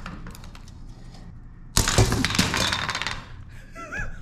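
A tightly coiled sail batten springing loose under its own tension, with a sudden loud clatter of rapid cracks and rattles about two seconds in that dies away over about a second, after some light clicking of handling.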